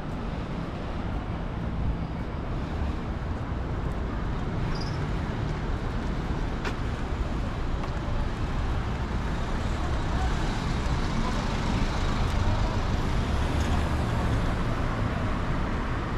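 Road traffic: a steady rumble and tyre hiss of passing cars, swelling louder a little past the middle as vehicles go by close.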